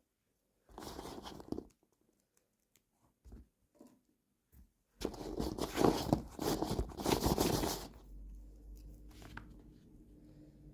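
Toy packaging being torn and crinkled open by hand: a short rustle about a second in, a few small clicks, then about three seconds of louder tearing and crackling, after which a faint low hum remains.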